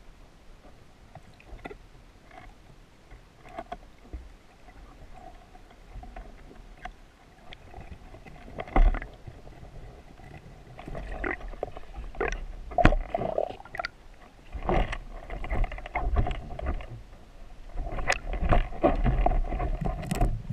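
Muffled underwater knocks, scrapes and low rumbling, heard through a waterproof camera housing as a freediver works along rocks and grabs a lobster by hand. Sparse clicks at first, growing busier and louder from about halfway in.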